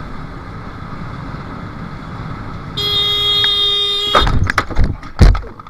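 Wind and road noise from a moving motorbike, then a vehicle horn sounds one steady blast of about a second and a half, followed by several loud sharp knocks.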